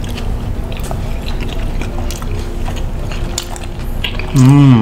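Close-up eating sounds: chewing with scattered small clicks and crunches. Near the end a short, loud hummed "mmm" from one of the eaters, rising then falling in pitch.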